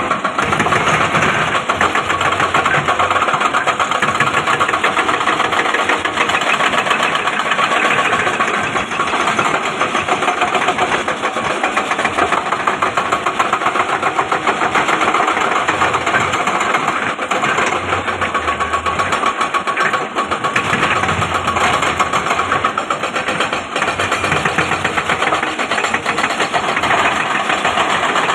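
Excavator's diesel engine running steadily with a fast, rough clatter.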